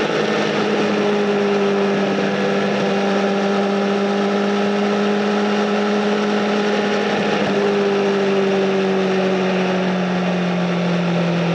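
Honda Fireblade SC59's inline-four engine through a Bodis aftermarket exhaust, running at a steady cruise under a rush of wind noise, its pitch easing gently down in the last few seconds as the throttle is rolled off.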